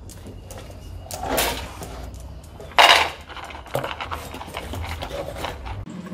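Dry dog kibble poured from a small metal cup into a dog's food bowl: a rattling rush, loudest about three seconds in, then light clinks and clicks as the dog eats from the bowl.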